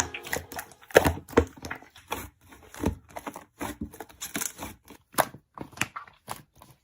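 Slime being squished and worked by hand, making irregular sticky pops and crackling clicks.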